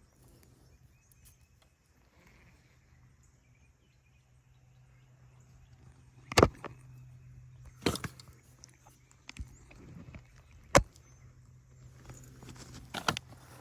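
Fishing rod and reel being cast and worked: a few sharp, loud clicks and knocks spaced a second or more apart, starting about halfway through, over a faint steady low hum.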